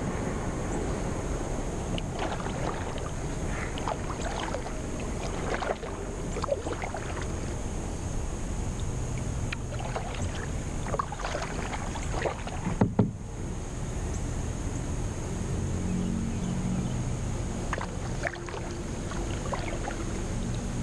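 Kayak paddling on calm water: the paddle blades dip in, and water splashes and drips in scattered short bursts over a steady hiss. Two sharp knocks come a little past halfway.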